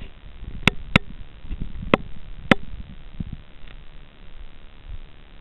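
Muffled low rumbling and knocking picked up by a camera underwater, with four sharp clicks in the first three seconds.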